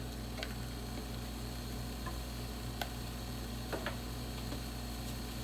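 A few faint, sparse clicks over a steady low hum: the small sounds of seasoning being added to a pot on the stove.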